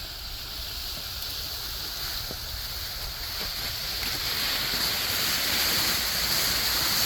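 Small battery-powered chainsaw running and cutting, its hissing chain noise growing louder through the second half, over wind rumbling on the microphone.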